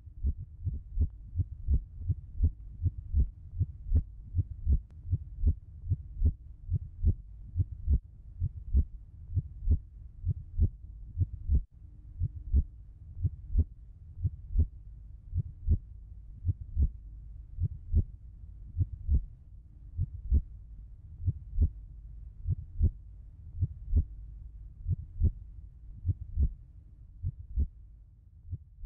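Heartbeat sound effect: low thumps in an even rhythm, about two a second, over a faint steady hum.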